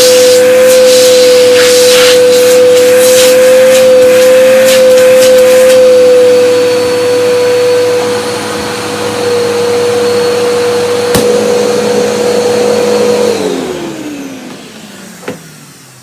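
Bernina 6100 upright vacuum cleaner running with a steady whine and a rush of air. There is a click about 11 seconds in; about 13 seconds in it is switched off and the whine falls in pitch as the motor spins down.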